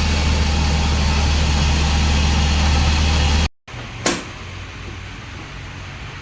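Nissan pickup engine running steadily with a loud low hum. The sound cuts out abruptly about three and a half seconds in, then comes a single sharp knock and a quieter, steady engine hum.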